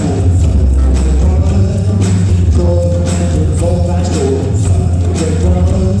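Indie rock band playing live: heavy bass, a steady beat, electric guitars and keyboard, with a sung vocal over them.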